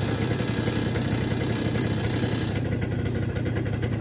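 A small vehicle engine running steadily at low revs.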